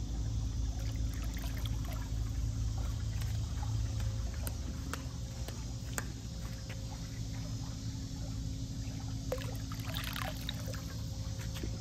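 Muriatic acid poured from a plastic jug into pool water, a brief trickling splash near the end, over a steady low hum.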